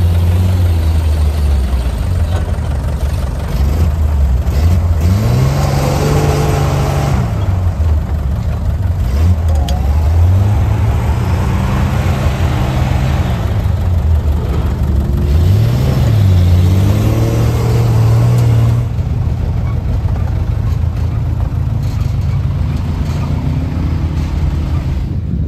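Truck engine revving up and easing off several times, its pitch rising and falling as it works through deep, soft sand, then settling lower about three quarters of the way through.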